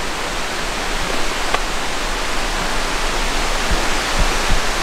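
Steady rushing of a nearby waterfall, an even wash of water noise, with a few soft low thumps in the second half.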